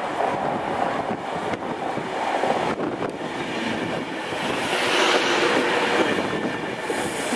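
Class 390 Pendolino electric train running through a station close by, its noise growing louder and brighter from about four and a half seconds in as the carriages pass.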